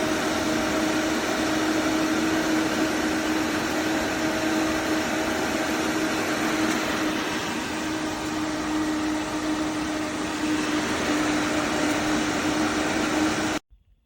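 Fanspex 8-inch wall-mount exhaust fan with a metal blade running at speed: a steady rush of air with a constant low hum, which cuts off abruptly near the end.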